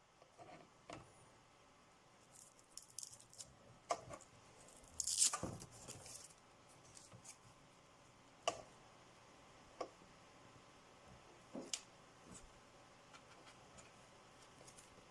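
Faint handling sounds: scattered sharp clicks and taps, with one louder brief rustle about five seconds in.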